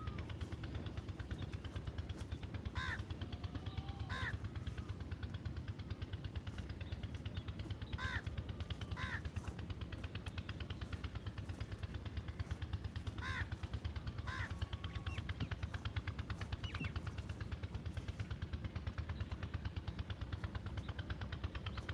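A bird calling with short, repeated calls that come in pairs about a second apart, three times, over a steady low rumble.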